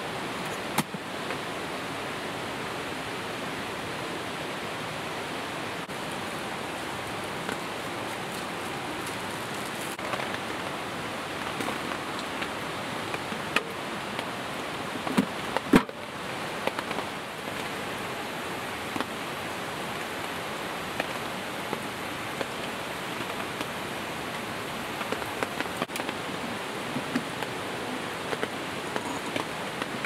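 Steady rushing of a mountain valley stream, with a few scattered clicks and one sharper knock about halfway through.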